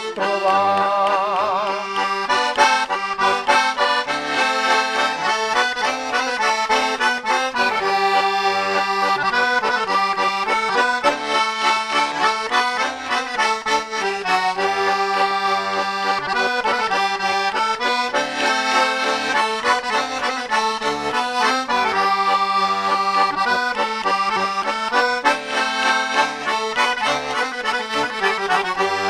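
Diatonic button accordion (organetto) playing a traditional folk tune: a changing melody over a bass that pulses in a steady rhythm.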